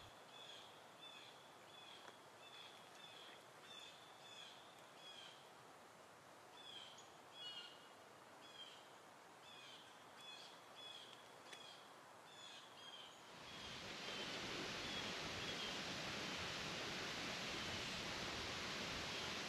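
Faint outdoor ambience: a run of short, high, evenly repeated chirps, about two a second. About two-thirds of the way in, a steady hiss rises and covers them.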